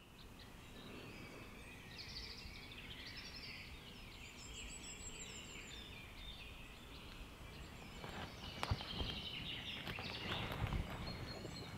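Faint chorus of small songbirds in a conifer forest, many short chirps and trills overlapping, with a few light clicks about eight and a half seconds in.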